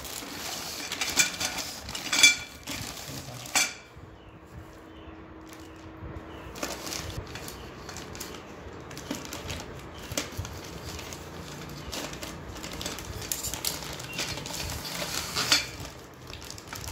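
Mild-steel shoe-rack pipes clinking and knocking against each other as they are handled in their plastic wrapping, with plastic crinkling and scissors cutting the wrap. The sharpest knocks come a couple of seconds in and again near the end.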